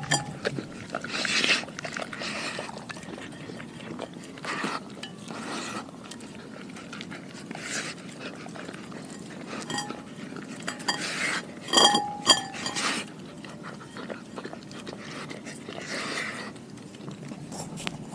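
Doberman licking a glass bowl clean: wet licking and lapping, with the bowl clinking and briefly ringing as it is nudged on the concrete, loudest about twelve seconds in.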